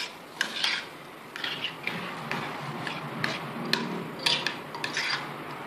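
Metal spoon making light, irregular clicks and taps against a container while cumin seeds are spooned out.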